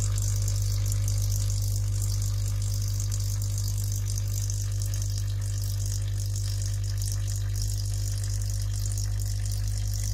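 Coffee machine water pump running steadily with a low hum, pumping water without its outlet valve.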